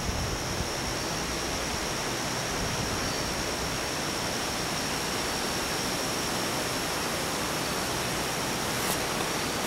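Steady, even rushing hiss with a faint constant high-pitched whine above it.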